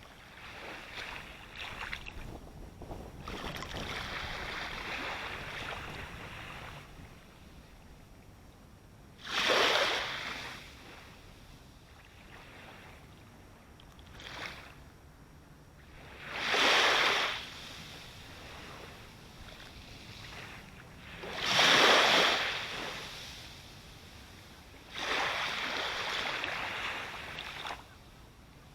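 Sea waves breaking and washing up the shore, recorded close up: a surge of surf every several seconds over a low rumble. Three of the surges, about ten, seventeen and twenty-two seconds in, are sharper and louder.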